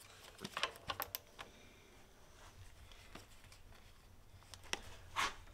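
A few light clicks and taps from a cordless ratchet and socket, worked by hand on the belt tensioner of a BMW M52 engine. A cluster comes in the first second and a half and two more near the end.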